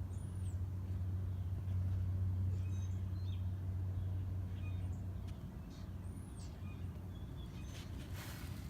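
A 2003 Toyota 4Runner's engine idling with a steady low hum, while birds chirp a few times; a brief rush of noise comes near the end.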